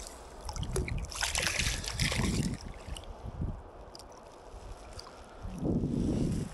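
A hooked grayling splashing and thrashing at the surface right beside an inflatable canoe as it is brought to hand, with water sloshing; the biggest splash comes about a second in and lasts over a second.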